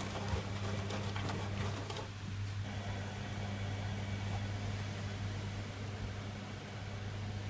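Servis Quartz MK601 washing machine running mid-cycle with a steady low mechanical hum; some higher hiss fades about two seconds in.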